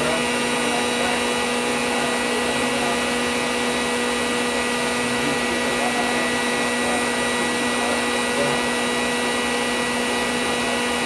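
Forge air blower running steadily: a constant motor whir with a steady hum.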